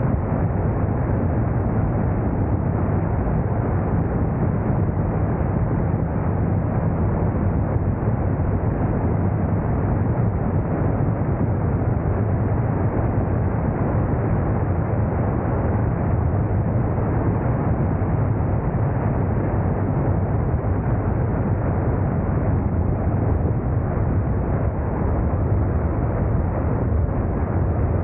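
Motorcycle riding at a steady speed: a constant engine drone under a steady rushing noise.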